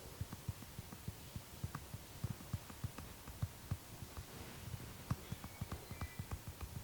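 Soft, low thuds of a masseur's hands tapping on a person during an Indian head massage, several a second in an uneven rhythm.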